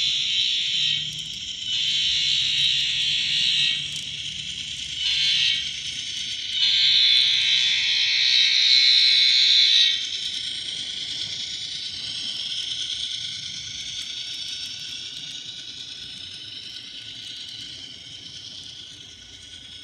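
Scale diesel horn from an ESU LokSound sound decoder, played through a tiny 10 mm speaker in an N scale SD70, sounding the grade-crossing pattern: long, long, short, long. It is thin and buzzy. Afterwards the locomotive's running sound fades as it moves away.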